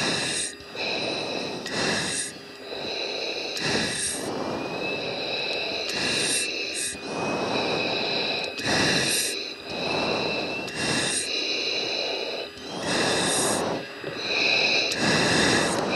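Breathing through an oxygen-mask microphone on the F-16 cockpit intercom. Hissing inhales and exhales come every one to two seconds, with a faint thin whine slowly rising in pitch through the middle.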